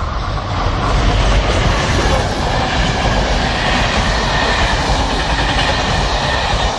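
Electric-hauled passenger train passing close by, its coaches' wheels running loudly over the rails. The noise swells in the first second as the train comes up and holds steady while the coaches go past.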